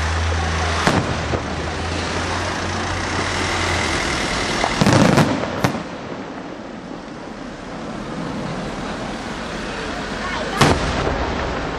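Aerial firework shells bursting: a sharp bang about a second in, a loud cluster of bangs around the middle and one more near the end. A low steady engine hum runs through the first few seconds and then stops.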